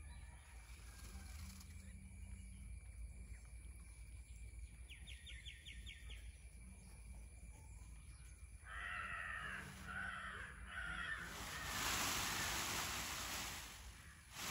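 A crow caws three times in quick succession about nine seconds in. A louder rushing hiss lasting about three seconds follows near the end. Earlier comes a brief, fast rattle of clicks.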